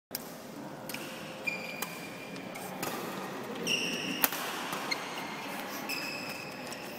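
Badminton play: sharp racket hits on a shuttlecock, with short high squeaks, the kind shoes make on a court floor, in between.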